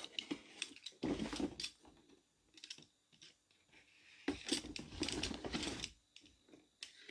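Utility knife cutting and scraping along the tape and edges of a cardboard collector's box: irregular scratchy strokes and small clicks, in two bouts with pauses between.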